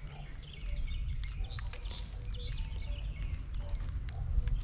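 Outdoor background: a choppy low rumble on the microphone, with faint bird chirps here and there.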